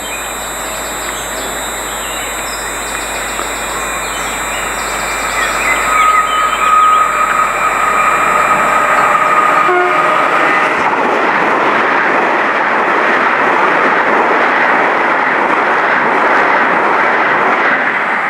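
A Great Western Railway Hitachi 800-series Intercity Express Train approaching and passing at speed. Its rush and wheel noise build and stay loud through the second half. A held horn tone sounds about a third of the way in.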